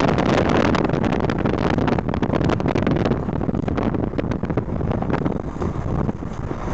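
Rumble and wind buffeting of a vehicle driving on a rough dirt road, with many small knocks and crackles. A truck passing close alongside adds to the noise for the first few seconds, then the sound thins out a little.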